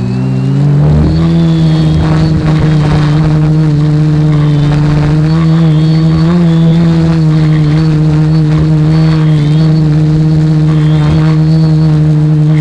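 Reptile Aphid X450 quadcopter's four motors and propellers running in flight, picked up close by the camera mounted on the frame: a steady pitched hum that rises slightly in pitch about a second in and then holds level.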